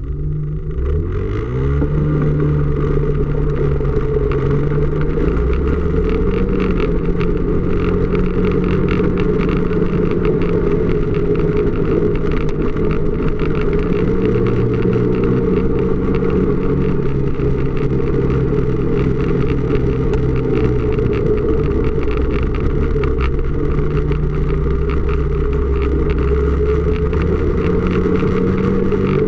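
Snowmobile engine running under way. It revs up about a second in, then runs steadily, its pitch shifting up and down every several seconds with the throttle.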